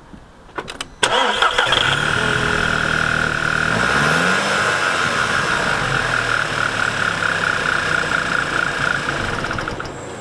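Audi TT's TFSI turbocharged four-cylinder petrol engine being started: it catches about a second in, the revs flare up and fall back, then it idles steadily with a high whine over it. The owner judges that it starts and runs fine.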